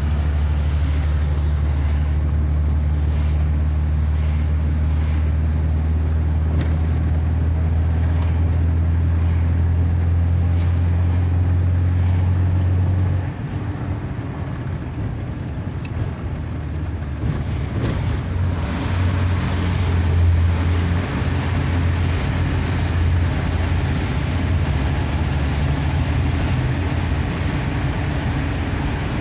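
Vehicle engine and road noise heard from inside the cab while driving: a steady low engine hum that drops about halfway through, then a fuller rushing of tyres and traffic as the vehicle drives into a road tunnel.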